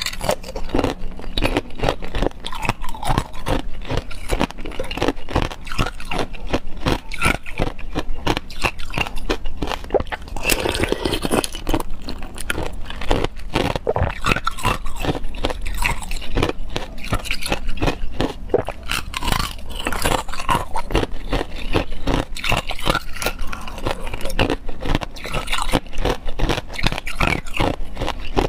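Hard clear ice, with pomegranate seeds frozen into it, being bitten and chewed right at a clip-on microphone: a dense, unbroken run of sharp cracks and crunches as the pieces break between the teeth.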